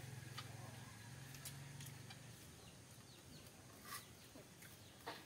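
Quiet rural ambience: faint clucking of chickens and small birds chirping, with a few soft clicks and a low hum that fades out about two seconds in.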